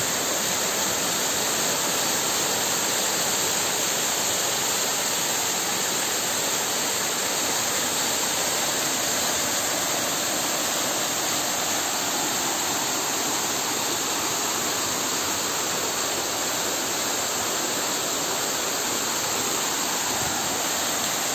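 Small waterfall pouring down a rock face and splashing into a muddy pool: a steady, even rush of water.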